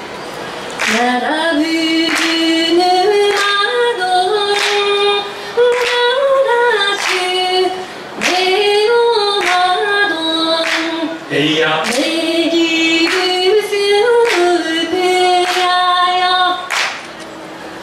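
A small vocal group singing a cappella in harmony, with handclaps on the beat a little over a second apart. The singing stops near the end while the claps carry on.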